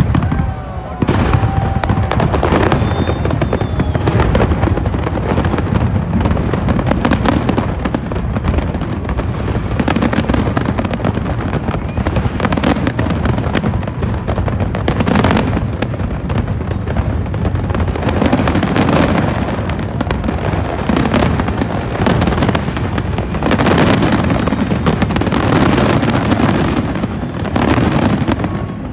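Large aerial fireworks display, many shells bursting in rapid, overlapping succession with sharp bangs and crackling that run on without a break.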